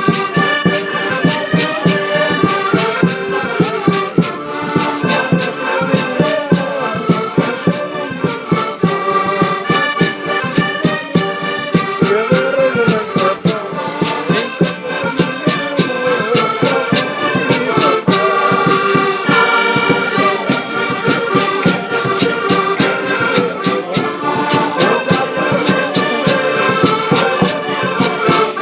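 Live band playing traditional dance music: a sustained melody over a steady percussion beat.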